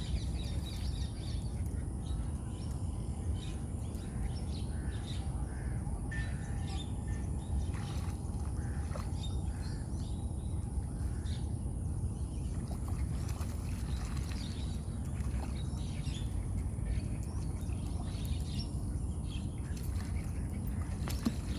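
Outdoor lakeside ambience: small birds chirping in short, scattered calls over a steady low rumble.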